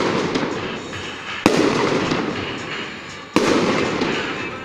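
Aerial fireworks shells bursting overhead: a sharp bang about a second and a half in and another at about three and a half seconds, each fading away over the following second or two.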